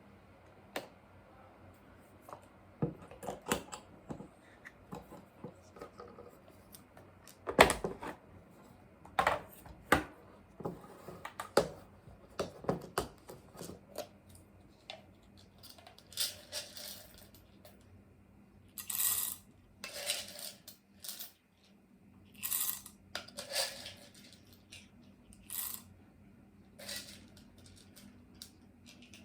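Irregular clinks, taps and clatters of small hard objects being handled, some in quick runs, over a faint steady hum.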